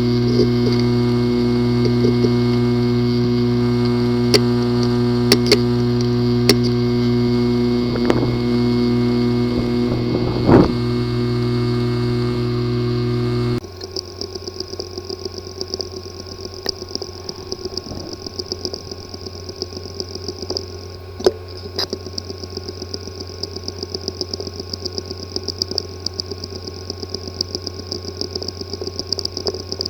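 Hard drive with a physically damaged disk assembly: a loud, steady buzz with a few sharp clicks, which cuts off abruptly about halfway through and gives way to a quieter, fast, uneven ticking. Buzzing and clicking like this is the symptom of internal physical damage to the drive.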